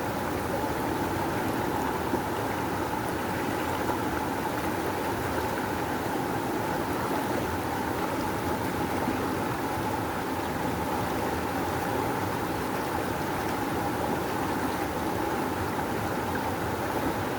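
Rushing river water flowing steadily, a constant even rush with no breaks.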